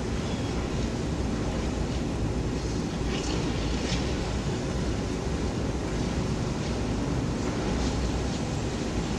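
Steady low rumble of a demolition site beside city traffic: a long-reach demolition excavator's diesel engine running, with two faint crunches about three and four seconds in.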